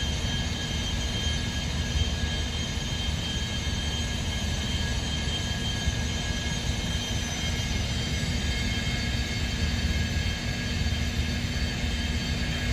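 Steady machine drone from the liquid nitrogen tanker truck's engine and transfer pump during the offload: a low rumble with a steady high whine over it, unchanging throughout.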